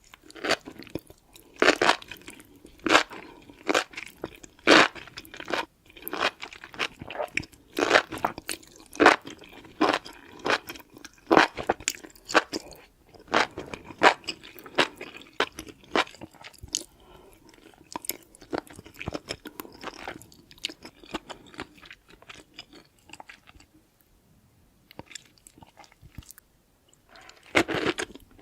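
Close-miked eating of crunchy food: loud crunching bites and chewing, roughly one sharp crunch a second at first, then softer, busier chewing. After a short lull, loud crunching returns near the end.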